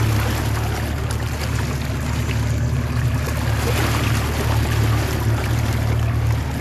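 Boat engine running steadily with a low hum, under the noise of water rushing and splashing along the hull.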